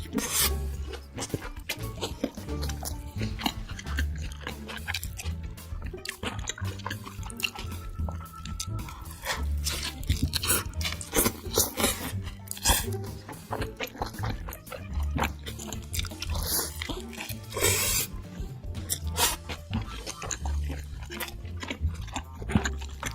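Close-up chewing and crunching of food, with many short crisp bites, over background music with a deep, repeating bass beat.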